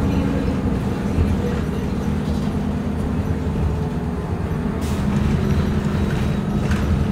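City bus running steadily, heard from inside the passenger cabin: a low engine and drivetrain drone with road noise, and two short rattles in the second half.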